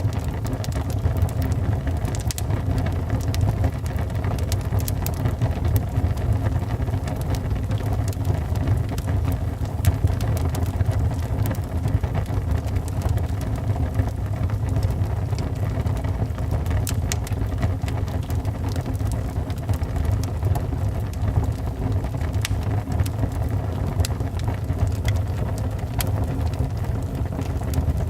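Wood fire burning in a fireplace: a steady low rumble of flames with scattered sharp crackles and pops throughout.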